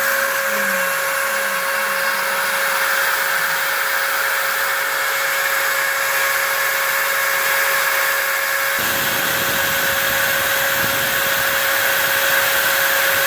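Router spindle of a home-built CNC mill running steadily with a constant whine while it cuts foam, together with the rushing of a dust-collection vacuum drawing through its hose. A deeper rumble joins about nine seconds in.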